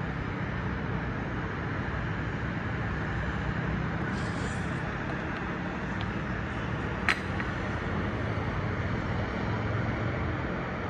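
Steady hum of city road traffic, with one sharp click about seven seconds in.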